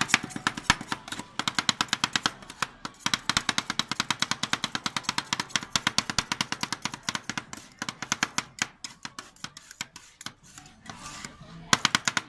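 Two metal spatulas chopping fast on a cold iron plate, a quick run of clicking taps as fruit is chopped and mixed into the ice cream base for rolled ice cream. The chopping drops away briefly near the end, then starts again.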